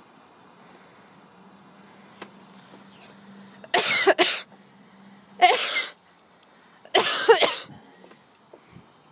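A person coughing three times in short bursts, each about half a second long and a second or so apart.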